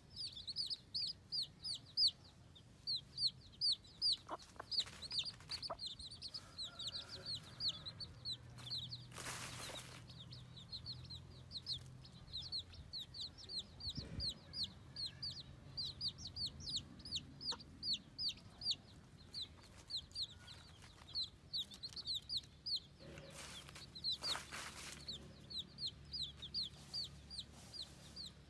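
Baby chickens peeping continually, short high-pitched calls several a second from a group of chicks, with a couple of brief scratchy noises in between.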